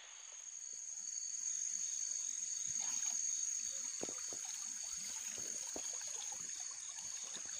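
Small splashes and trickling water from wading in a shallow pond at night, over a steady high-pitched whine.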